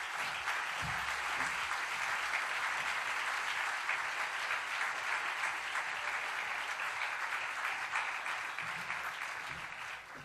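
Audience applauding, steady and dense, then dying away near the end.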